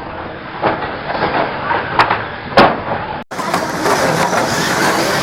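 Banger racing cars' engines running on the track, with two sharp loud bangs about two seconds in, a little over half a second apart. A little past halfway the sound switches abruptly to a fuller, steadier engine noise.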